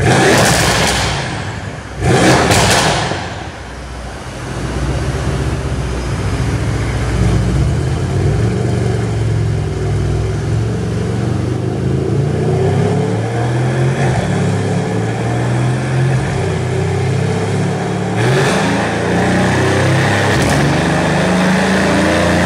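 Mercedes-AMG C63 S 4.0-litre twin-turbo V8 with catless downpipes and its exhaust valve open, blipped sharply twice in the first three seconds, then running steadily, getting a little louder and rising slowly in pitch near the end. Loud exhaust.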